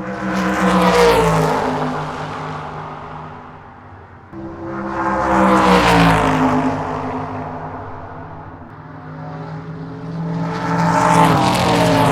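Race car engine going by at speed three times, each pass swelling to loud and then dropping in pitch as it moves away: about a second in, about six seconds in, and near the end.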